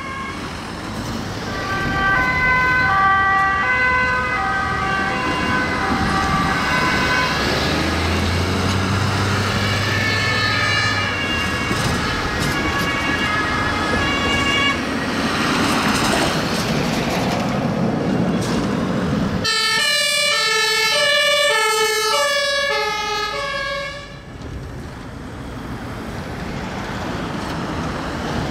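Emergency vehicles go by with two-tone sirens alternating between two pitches, over the noise of their engines and tyres; one vehicle passes close around the middle. About twenty seconds in, a single two-tone siren sounds clearly for a few seconds. It then cuts off, leaving only traffic noise.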